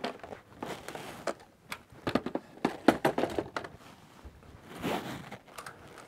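Plastic blister packaging of a replacement M.2 SSD being handled and opened: irregular crinkling and crackling of stiff plastic with sharp clicks, loudest in the middle.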